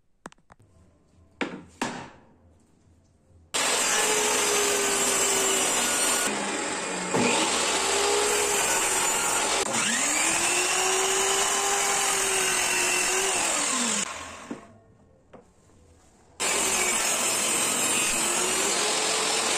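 A few light clicks, then an electric miter saw runs and cuts through a block of hardwood. Its motor tone dips and recovers as the blade bites, then winds down slowly. Near the end a table saw starts up and runs.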